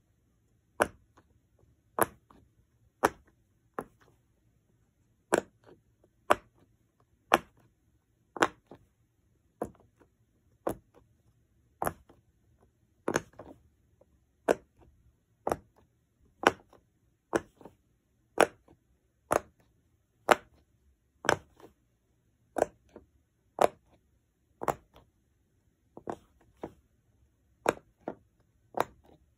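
Bubbles of a jumbo bear-shaped silicone pop-it fidget toy pressed one at a time, each giving a sharp single pop, about once a second.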